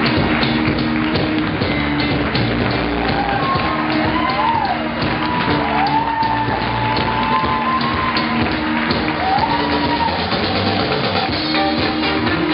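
Rock music with drums and guitar, a wavering lead melody line weaving over it from about three seconds in.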